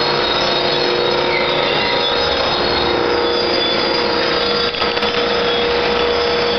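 Verduzco TVRM60 tortilla machine running, its mesh conveyor belts moving: a loud, steady mechanical noise with a constant humming tone.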